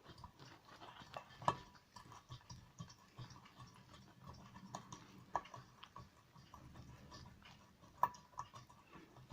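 Faint, irregular clicks and taps of hand tools on metal while a bolt is being undone on a small petrol engine, with a few louder clicks spread through.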